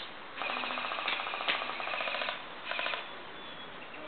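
Airsoft electric gun firing on full auto: a rapid rattle of shots lasting about two seconds, then a second short burst near the three-second mark.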